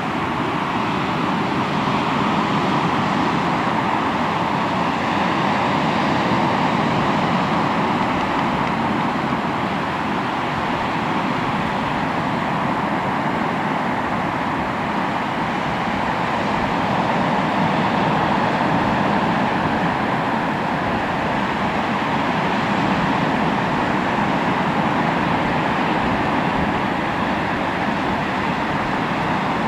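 Sea waves washing onto the shore in a steady roar of surf that swells and eases in slow surges several seconds long.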